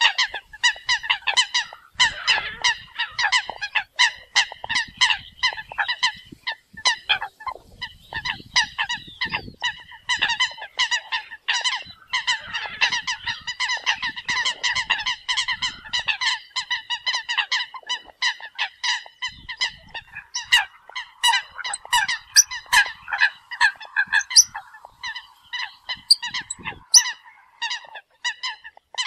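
Eurasian coots calling: short, pitched calls repeated rapidly, several a second and overlapping, without a break. This is the flock call used to draw other coots in.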